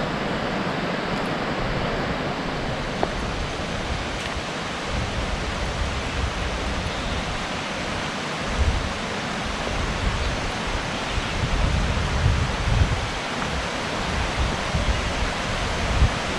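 Steady hiss of rushing water from a stream or waterfall, with wind buffeting the microphone in low gusts.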